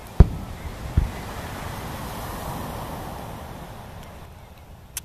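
Two loud bangs from aerial firework shells bursting, about a second apart, followed by a steady hiss that swells and fades, and one more sharp crack near the end.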